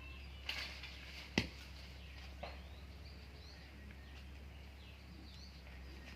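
Birds chirping faintly with short, rising and falling calls, and a few sharp clicks or snaps, the loudest about one and a half seconds in.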